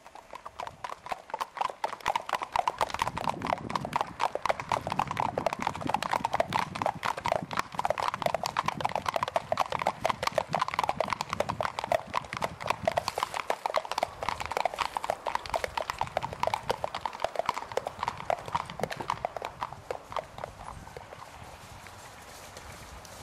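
Hooves of several ridden horses clip-clopping at a walk on a hard paved path, a dense, uneven patter of hoofbeats that fades away near the end.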